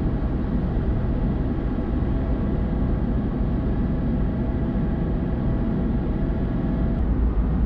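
Flight Design CTLS light aircraft in flight, its Rotax 912 ULS engine and propeller running at a steady, unchanging pitch, heard from inside the cockpit.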